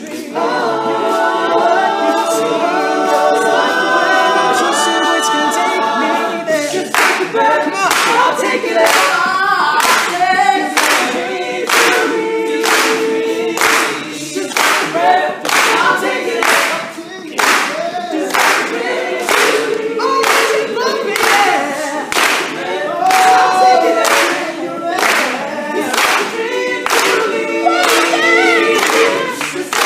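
Male a cappella group singing in harmony, a lead voice over backing voices. The first six seconds are held chords; from about seven seconds in, steady handclaps keep the beat under the singing.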